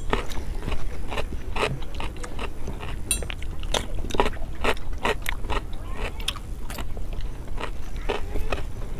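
Close-miked eating: crisp bites into raw cucumber slices and wet chewing, with irregular crunchy clicks about twice a second.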